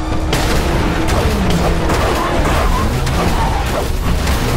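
Loud action-cartoon soundtrack: music layered with heavy booming, rumbling effects that keep going without a break.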